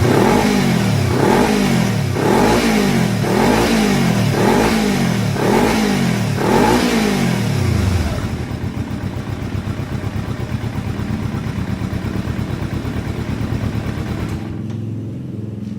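Kawasaki Ninja 250R parallel-twin engine, breathing through an Akrapovic carbon slip-on exhaust with the dB killer fitted, being revved in quick throttle blips about once a second. About eight seconds in it drops back to a steady idle.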